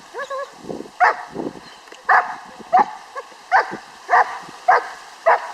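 Young German Shepherd barking in a steady series, seven sharp barks a little over half a second apart, after a short wavering call at the start.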